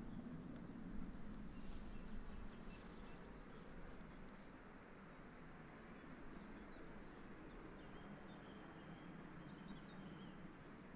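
Faint outdoor ambience: small birds chirping over a low, steady rumble, with a few soft clicks in the first few seconds.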